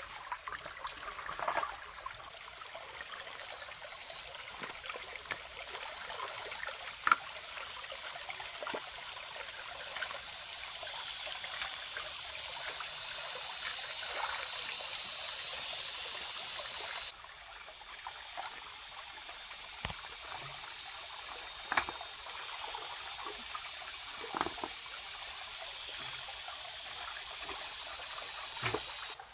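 Stream water trickling and running steadily, with a few short clicks scattered through it. The sound drops slightly in level and changes character abruptly partway through.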